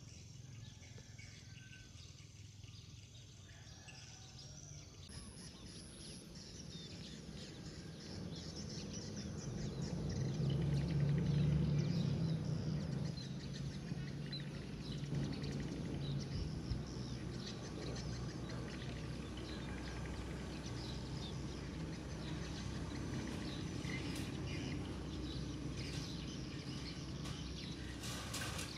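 Outdoor ambience with scattered small bird chirps over a steady background noise. A low hum swells about ten seconds in and then settles at a steady level.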